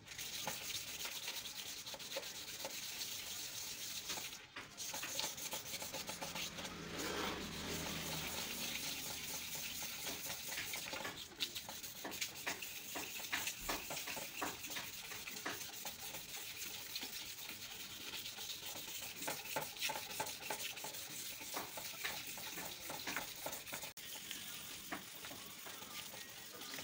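Fine 1000-grit sandpaper being rubbed by hand back and forth over a wet plastic motorcycle headlight lens, a continuous scratchy rubbing in quick strokes. It is the wet-sanding stage that takes the yellowed, oxidised surface off the lens.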